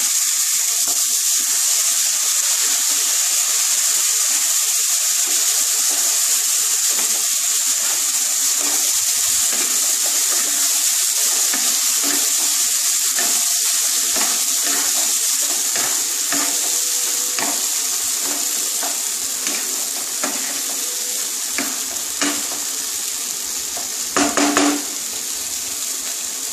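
Boiled moong dal sizzling as it fries in oil with tomatoes and spices in a non-stick wok, stirred and scraped with a wooden spatula. A few sharper knocks of the spatula on the pan come near the end.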